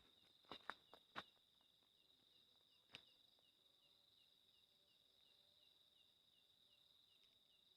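Faint night insect chorus, a steady high hum with a short chirp repeating about three times a second, typical of crickets. A few soft clicks in the first second and one at about three seconds in.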